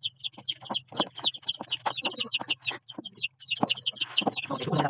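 Chickens calling in a quick run of short, high repeated notes, over sharp clicks of a knife cutting through raw squash.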